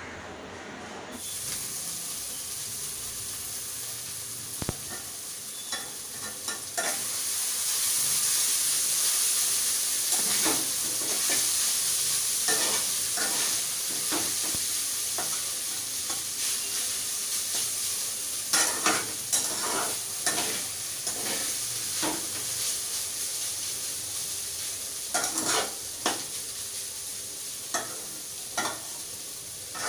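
Boiled noodles sizzling as they fry in oil in a wok. A spatula stirs and tosses them, scraping and knocking against the pan now and then. The sizzle grows louder about seven seconds in.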